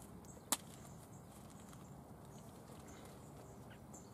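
A single sharp click about half a second in, over faint handling noise, as a solid PVA bag of carp bait is packed in a plastic loading tube.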